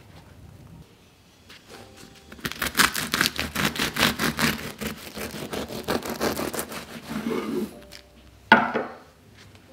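A bread knife sawing through the crisp, flaky crust of a baked croissant loaf: a run of rapid rasping strokes lasting about five seconds, followed near the end by one short, loud crunch.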